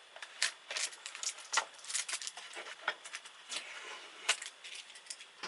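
Blue shipping tape being peeled off the plastic body of a Brother sewing machine: an irregular run of small ticks and crackles with no steady rhythm.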